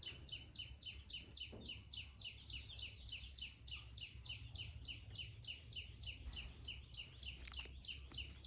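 Ladies' Seiko automatic wristwatch ticking, a fast even tick of about five to six beats a second, its movement running after being shaken to start. A few sharp clicks come near the end.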